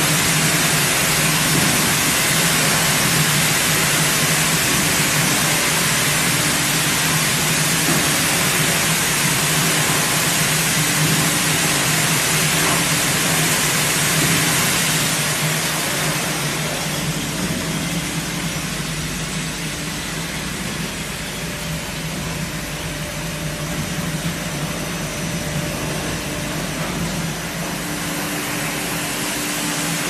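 Stainless-steel rotary drum washer running: water hissing from the spray nozzles inside the turning perforated drum over a steady motor hum. The spray hiss becomes quieter about halfway through, leaving mainly the hum.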